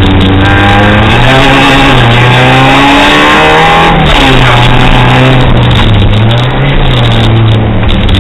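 Fiat Seicento's engine, heard loud from inside the cabin, running hard on a rally stage. The revs climb, drop sharply about four seconds in, then climb again.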